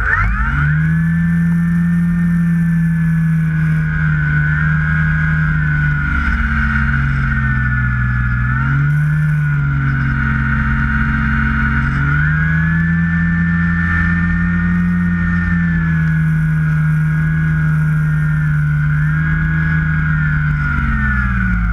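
Motor and propeller of a model Carbon Cub floatplane taxiing on water. A steady hum whose pitch drops and rises a few times as the throttle changes, with a higher whine above it.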